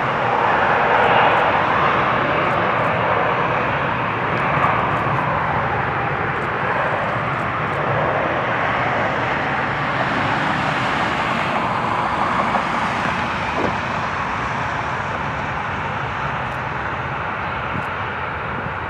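Jet airliner engine noise: a steady rushing sound, loudest about a second in and slowly fading.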